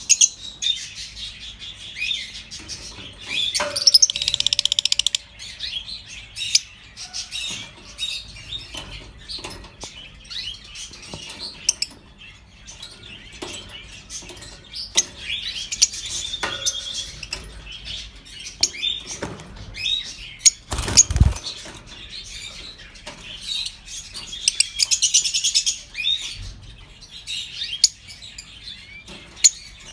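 Masked lovebirds chirping and chattering with many short high calls, including two bouts of rapid buzzy chatter. A single thump sounds about two-thirds of the way in.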